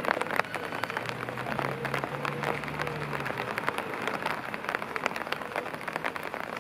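Summer rain falling, with many sharp, irregular drop hits close by over a steady hiss.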